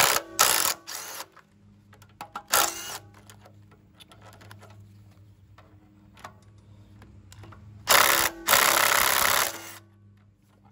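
DeWalt 12-volt cordless driver running in short bursts as it backs bolts out of a pressure washer pump. There are three quick runs at the start, one about two and a half seconds in, and a longer, louder run of nearly two seconds near the end.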